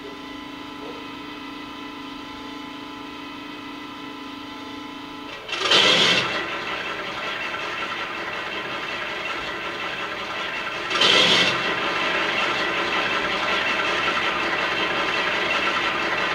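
Model Class 42 Warship diesel locomotive's DCC sound decoder playing a Howes Warship sound file through an EM2 speaker: a steady hum at first, then the first engine starts about five seconds in and the second about five seconds later, each settling into steady running.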